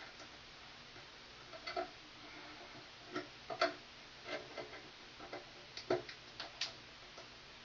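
Scattered light clicks and taps of a hand tool working copper wire as the stripped ends are bent into loops for a light fixture's terminal screws.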